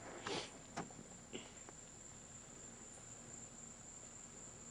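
Crickets trilling faintly in one steady high note, with a few brief rustles in the first second and a half.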